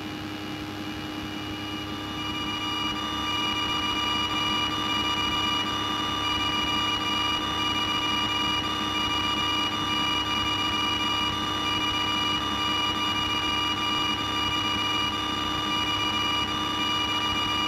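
Piper Cherokee's single piston engine and propeller running steadily at low taxi power, heard from inside the cabin: a steady drone with a high, steady whine, growing louder over the first few seconds.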